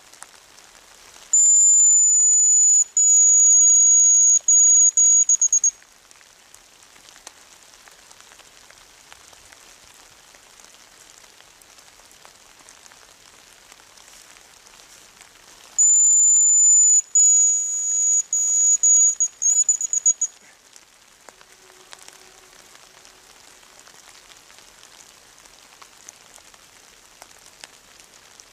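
Hazel grouse call, given twice: a very high, thin whistle, each phrase a long drawn note followed by shorter broken notes, the second ending in a brief warble. Steady light drizzle hisses underneath.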